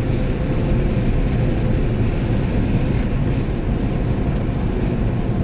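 Steady road and engine noise inside a moving car's cabin, a low even rumble with a faint steady hum.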